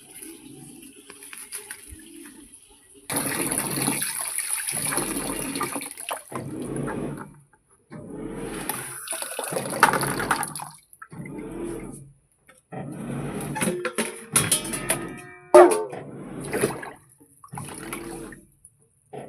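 Water running and splashing in repeated bursts of a second or three each, with short pauses between them.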